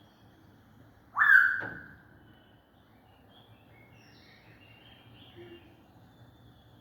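Caged birds calling: one loud call rising in pitch about a second in, lasting under a second, followed by a string of faint short chirps.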